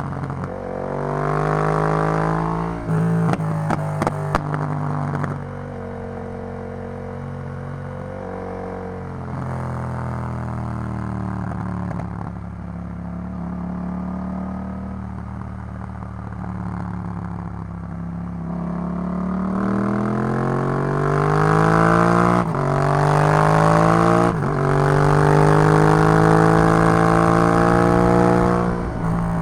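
Yamaha MT-07's parallel-twin engine through an Arrow full exhaust system, accelerating with engine speed climbing and a couple of quick gear changes near the start. It then runs at a steadier, lower pitch for a long stretch, and near the end pulls hard again with rising revs broken by two quick gear changes.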